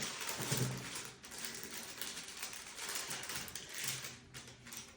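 Paper wrapper of a sterile glove pack being opened and unfolded: continuous crinkling and rustling with many small clicks, stopping near the end.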